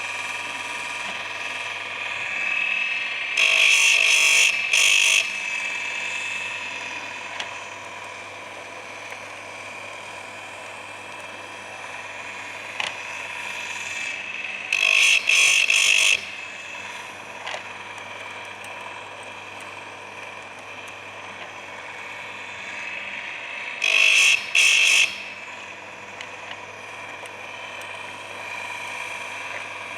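Baumr-AG electric chainsaw chain sharpener's grinding wheel spinning with a steady whine. Three times, about ten seconds apart, the wheel is brought down onto a cutter tooth and grinds loudly in two quick strokes.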